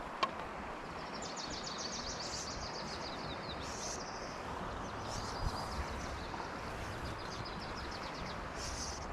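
Creek water running steadily. A bird sings two high, rapid trills of quickly repeated notes over it. There is one sharp click just after the start.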